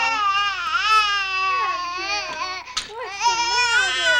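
Baby crying in long, loud wails, breaking off briefly just before the three-second mark and then starting up again.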